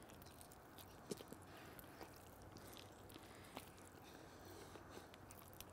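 Faint chewing of a chicken wing flat: a few soft clicks and crunches over near silence.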